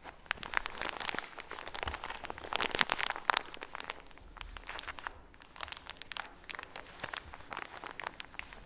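Kinetic sand crunching and crumbling in a dense crackle of tiny clicks, loudest around three seconds in and thinner in the second half.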